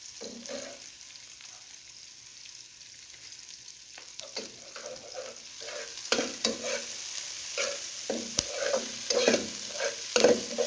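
Onion, garlic and pimento sizzling as they fry in hot oil and butter in a pot. From about halfway a spoon stirs them, knocking and scraping against the pot.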